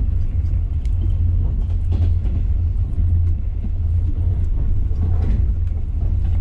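Steady low rumble of a moving passenger train, heard from inside the carriage, with a few faint knocks.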